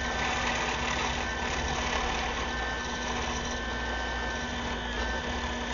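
Benchtop drill press running steadily, its 3/4-inch spade bit boring holes into a wooden board, with a steady motor hum.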